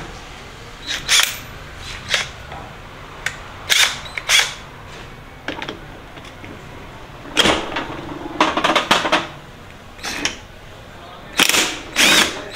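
Sharp metal knocks, then short rattling bursts near the end, as a puller threaded into a motorcycle engine's magneto rotor is struck and then driven with a cordless impact wrench, working the rotor off the crankshaft.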